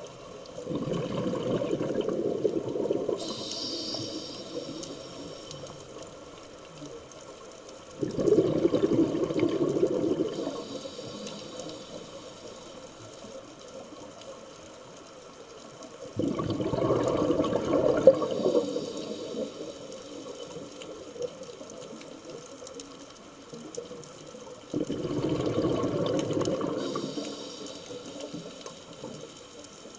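Scuba diver's regulator exhaust bubbling underwater as the diver breathes out: four bursts of bubbles, each two to three seconds long, about eight seconds apart.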